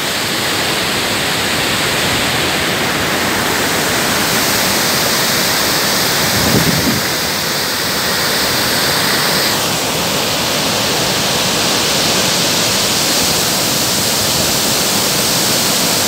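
Wide, many-stranded waterfall rushing into its plunge pool, a loud, steady, even rush of falling water. Its tone shifts about ten seconds in.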